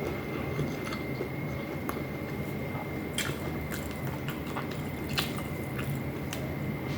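Close-miked chewing of stewed tuna and rice, with wet mouth clicks and smacks now and then over a steady background hum and a thin high whine.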